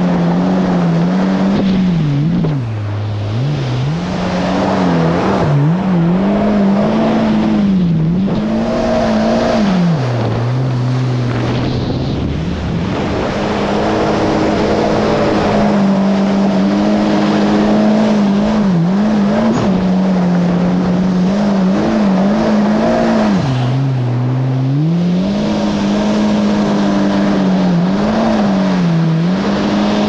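Yamaha GP1800R SVHO jet ski's supercharged four-cylinder engine running hard under way, its note rising and falling with the throttle and dropping sharply about three seconds in, again around ten to twelve seconds, and near twenty-four seconds before climbing back. A steady rush of water spray and wind runs underneath.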